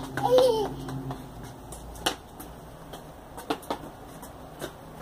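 A toddler's brief squealing voice at the start, then a few sharp, scattered taps over low background noise.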